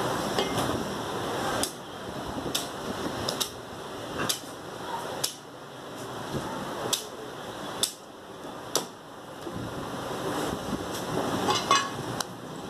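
A butcher's cleaver chopping mutton on a wooden block: sharp, irregular strikes about once a second, some landing on bone, over steady background noise.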